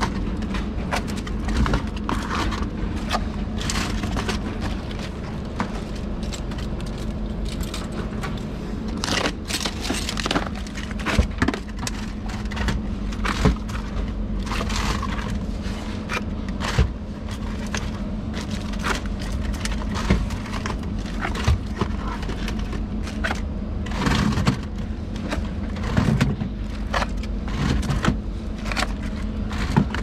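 Iced-coffee bottles being stocked onto the shelves of a store drinks cooler: irregular knocks, clicks and scrapes as they are set down and slid into place, over a steady low hum.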